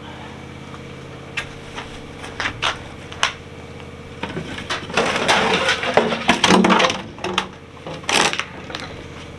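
Hard plastic pig feeders and buckets knocking and clattering as they are picked up, with a stretch of crinkling and rustling from plastic bags and litter on the floor in the middle and a last clatter near the end.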